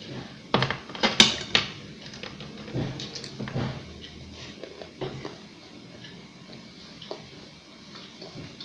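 Clinks and knocks of a plate as rice is gathered and scooped by hand. The loudest cluster comes about a second in, followed by scattered lighter taps.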